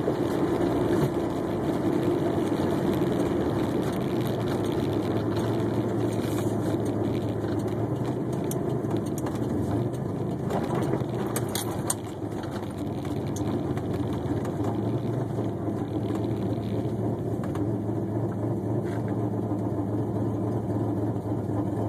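Car engine idling steadily with an exhaust leak at the headers, which the owner puts down to loose header flange bolts. A few faint clicks come in the middle.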